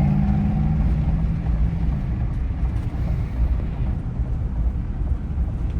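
Motor vehicle driving: a steady low engine and road rumble, with an engine hum that fades out about two seconds in.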